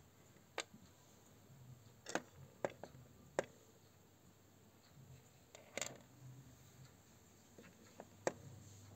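Small sharp clicks and taps, about seven spread out, as miniature plastic toy food pieces are picked up and set down on a plastic plate.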